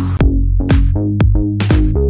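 Electronic dance music with a steady kick-drum beat of about two beats a second over held bass notes; the high end drops out briefly near the start and then comes back.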